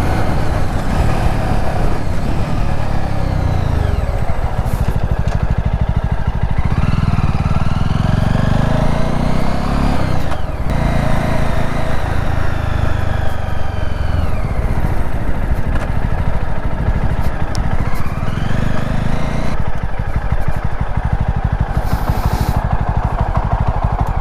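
Motorcycle engine running under way, its revs climbing and dropping several times. Heard through a helmet-mounted lav mic with a heavy low rumble of wind buffeting.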